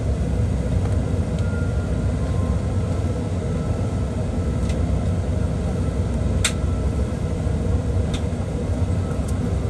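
Steady low rumble inside the cabin of a Boeing 777-300ER on the ground, with a few sharp clicks, the loudest about six and a half seconds in.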